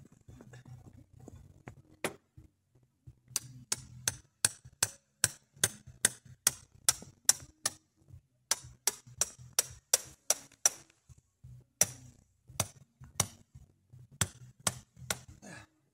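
Hammer driving a metal tent peg into frozen ground. Sharp, ringing metallic strikes come about three a second in runs, with short pauses between the runs.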